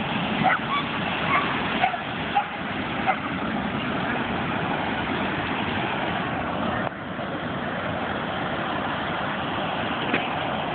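Ocean surf making a steady rushing wash, with a few short sharp sounds in the first few seconds and one more near the end.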